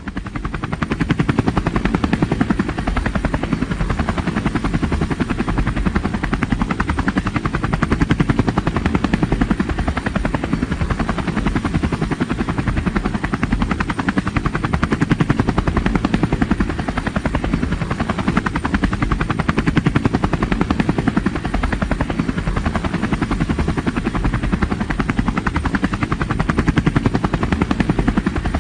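Helicopter rotor running steadily, a fast even chopping with a deep low end.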